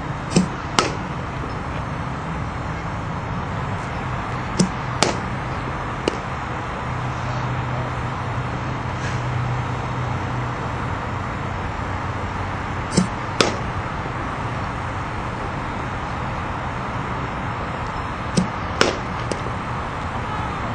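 Batting practice off a pitching machine: four times, a sharp knock of the machine firing a softball is followed about half a second later by the crack of the bat hitting it, over steady background noise.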